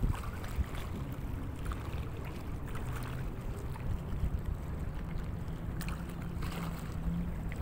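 Steady low rumble with a faint, even hum of a boat motor running, over light wind and water noise.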